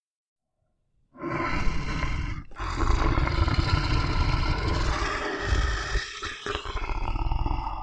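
A bear roaring, starting about a second in: a short roar, then after a brief break a long roar of about five seconds that wavers near the end.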